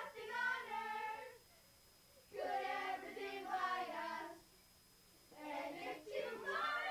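A group of children singing together in short phrases, with pauses of about a second between them.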